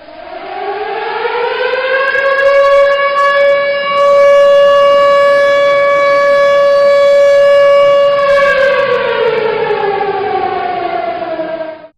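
A siren winds up in pitch over a couple of seconds, holds one steady loud wail, then winds down from about eight seconds in and cuts off sharply at the end.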